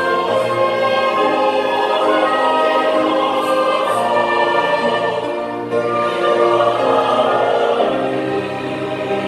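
Large mixed church choir singing in harmony with violin accompaniment, holding sustained chords.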